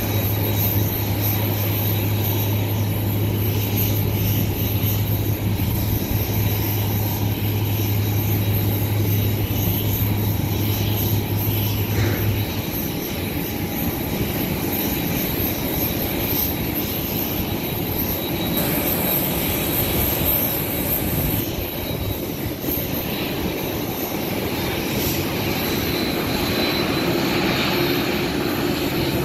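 Boeing 787 Dreamliner's jet engines running steadily at taxi power, mixed with the hiss of fire-truck water cannons spraying a water arch over it. A steady low hum stops about twelve seconds in.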